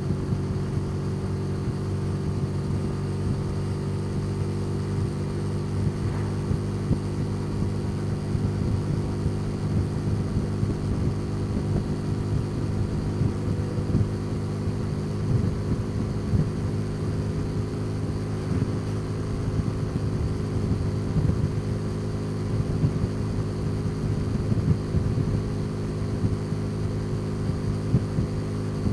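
Motorcycle engine running at a steady speed while riding, a constant low hum with no revving.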